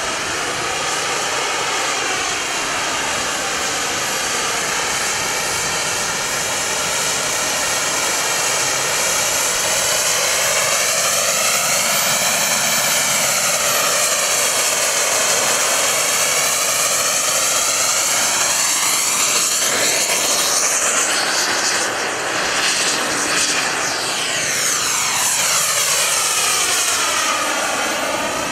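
Turbine engines of two radio-controlled model jets running at high power as they hover and manoeuvre: a steady, loud jet hiss whose tone sweeps slowly up and down in waves as the jets move about. The sound dips briefly about three quarters of the way through, then builds again.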